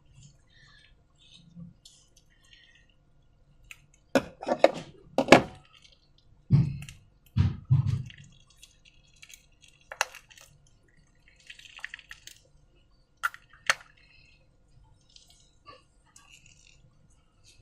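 Slime being handled: wet, sticky squelches and pops, with a few sharp clicks or taps. The loudest cluster comes about four to five seconds in, followed by a couple of dull thuds.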